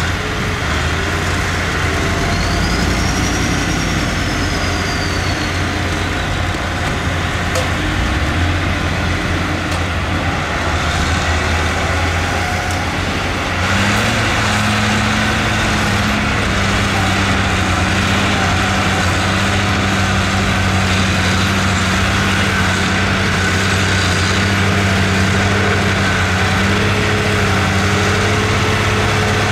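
Heavy diesel engine of earthmoving machinery running steadily under load. About halfway through it revs up to a higher pitch, gets a little louder and holds there.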